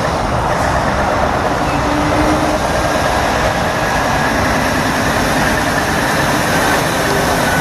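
Truck engine sound, a loud steady running noise with a hiss that does not change, then cuts off suddenly right at the end.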